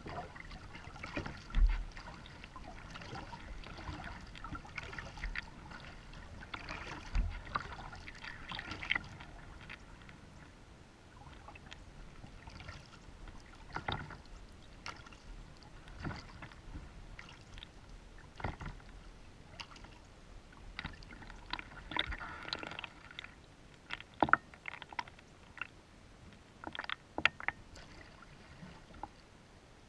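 Kayak on the water: scattered knocks and clicks from the hull and gear over a light wash of water, with a couple of low thumps in the first several seconds.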